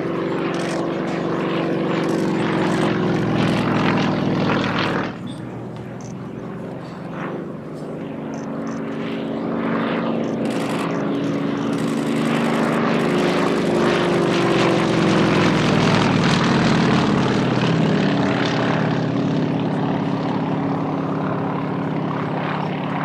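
Radial-engined propeller aircraft flying by with a steady engine drone. It drops off abruptly about five seconds in, builds again, and falls in pitch as the plane passes about two-thirds of the way through.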